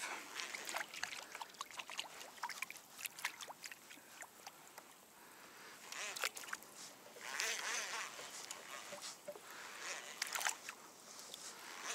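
Faint water sloshing and splashing beside a fishing kayak, with scattered small clicks and knocks of gear being handled on board. Two short hissing splashes stand out, about six seconds in and again near ten seconds.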